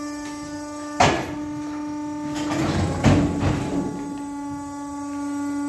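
Carpathian SMFA 100 sawmill's motor running with a steady hum. A sharp bang comes about a second in, and a stretch of knocking and rumbling comes around three seconds in, as logs are brought onto the mill with the loading ramp.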